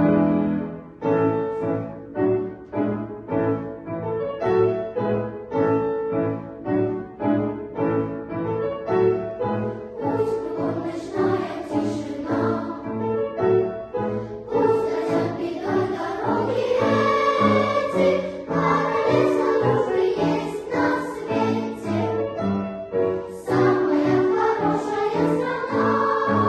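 Junior children's choir singing with instrumental accompaniment. For the first half the accompaniment plays pulsing chords on a steady beat, about two a second. Sustained choral singing comes to the fore about halfway through.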